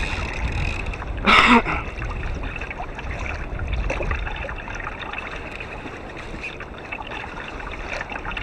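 Water trickling and lapping against a kayak hull over a low rumble, with one short, loud burst about a second and a half in.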